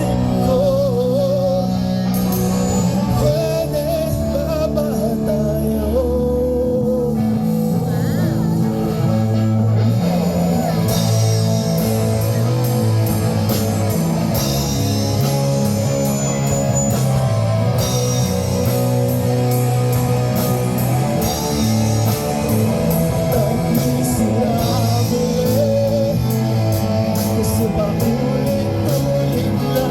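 Live band playing a rock song: guitar and bass carry a melody over held bass notes, with drums and cymbals coming in more strongly about ten seconds in.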